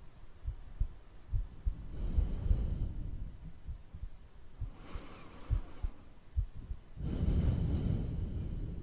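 Steady heartbeat, a regular run of short low thumps, with slow deep breaths swelling and fading over it about every two to three seconds; the loudest breath comes near the end.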